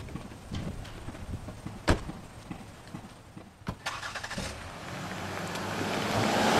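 Ford Escape SUV: a door shuts with a sharp clunk about two seconds in, and the engine starts a little before the halfway mark. The SUV then pulls away and drives closer, its engine and tyre noise growing steadily louder toward the end.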